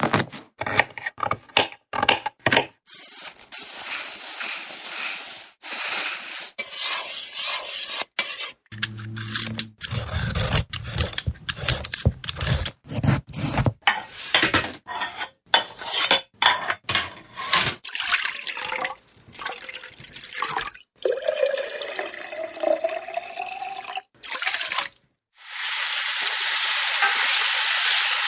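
A run of kitchen sounds one after another: dishes and cutlery clattering and clinking, stirring, and running and dripping water, with a short low hum in the middle. Near the end there is a loud steady hiss, like steam or food sizzling.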